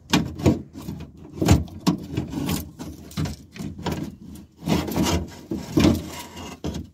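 A car's power-window motor and metal regulator rail being slid out through the door's inner panel opening, scraping and knocking against the sheet metal in a run of irregular rubs and bumps.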